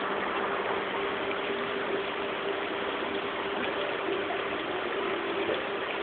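Spring water gushing up and running along a small channel: a steady rushing babble, with a faint steady hum underneath.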